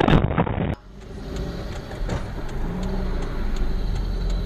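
Car engine and road noise heard from inside a moving car on its dashcam. A loud noisy passage cuts off abruptly under a second in, and a steadier, quieter rumble follows.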